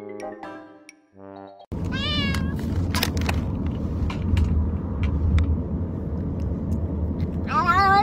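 Brief light piano-like music, then a tabby cat in a wire-doored carrier meowing over a steady low rumble. It gives a short wavering meow about two seconds in and a louder, longer wavering meow near the end.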